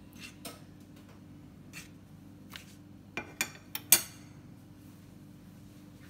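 A metal fork tapping and scraping in a nonstick frying pan as butter is pushed around, in scattered light clicks, with a quick run of sharper clinks about three to four seconds in.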